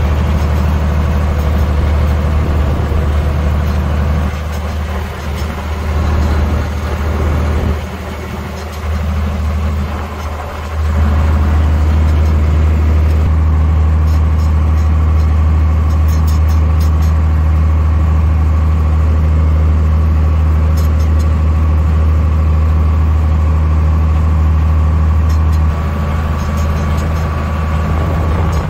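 Farm tractor engine running steadily under load, heard from the driver's seat, with a strong low drone. The engine note dips and wavers between about four and eleven seconds in, then holds steady with a faint whine over it.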